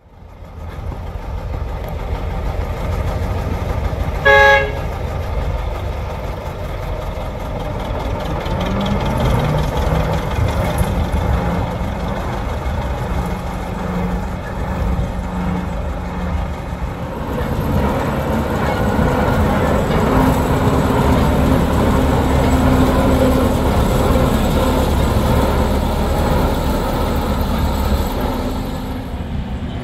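Ruston 48 diesel locomotive's engine running, with one short toot of its horn about four seconds in. The engine note rises about eight seconds in and again around twenty seconds in.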